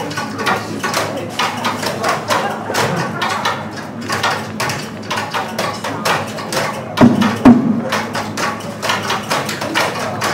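Everyday objects played as percussion: a dense, continuous run of taps, knocks and clatters, with two heavier thumps about seven seconds in.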